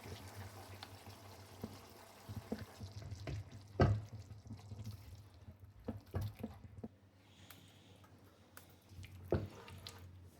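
Scattered light clicks and knocks of kitchen handling, the sharpest about four seconds in, over a low steady hum that stops about seven seconds in.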